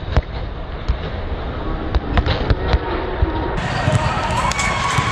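Volleyball rally: a series of sharp slaps and thuds as players hit the ball, in a large inflated sports dome.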